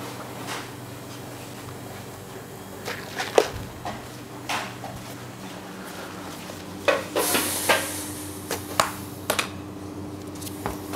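Clicks and knocks of a food processor's plastic feed-tube pusher and lid being handled and lifted off, with a brief scrape about seven seconds in.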